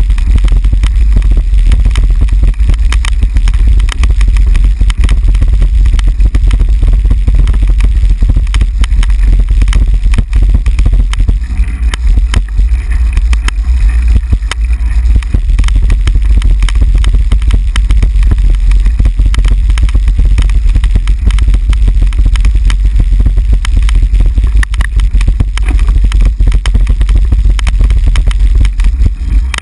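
Heavy steady rumble with constant irregular rattling jolts from a handlebar-mounted camera as the bicycle rolls over cobblestones, with wind buffeting the microphone.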